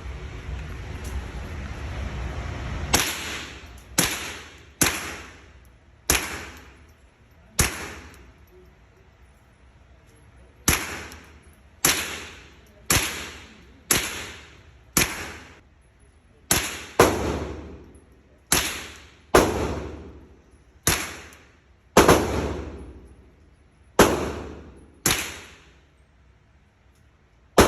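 A .22 being fired one shot at a time, about nineteen shots at roughly one a second, each cracking and dying away quickly, with a pause of about three seconds after the fifth shot.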